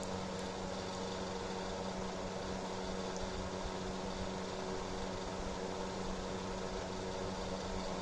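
Ningbo Singfun electric space heater running: its fan motor gives a steady whir of moving air with a low, constant hum.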